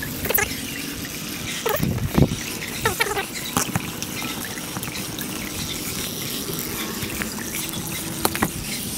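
Water running out of an above-ground frame pool through a hose on its drain valve, an even rushing noise sped up four times. There are a few sharp knocks from handling the hose fitting.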